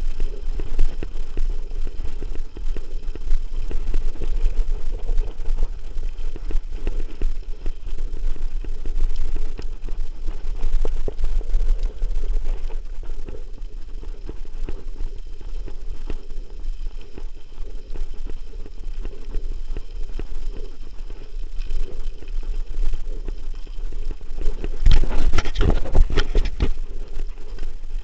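Mountain bike riding down a loose gravel track: wind buffeting the camera's microphone over a steady crunch and rattle of tyres and bike, with a louder burst of clattering over rough ground near the end.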